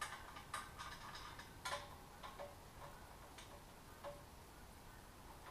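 Faint, irregular metal clicks and ticks from a wrench tightening loose half-inch bolts on an air compressor's frame, a few of them ringing briefly.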